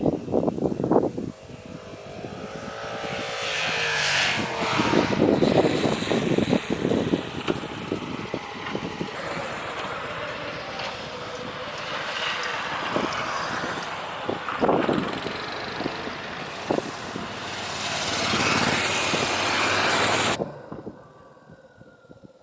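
Yamaha XSR700's parallel-twin engine under way, its pitch rising as it accelerates about two to four seconds in, under a heavy rush of wind on the onboard microphone. The sound drops away sharply near the end.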